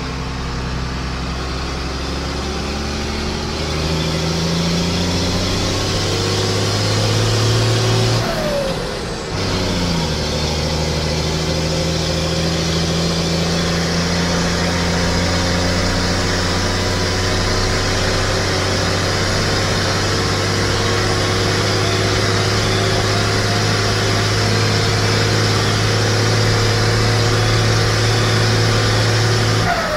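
IHC 1255 tractor's diesel engine pulling on the road, heard from the driver's seat: the revs climb for several seconds, drop briefly about a third of the way in as the driver changes gear, then hold steady at cruising speed.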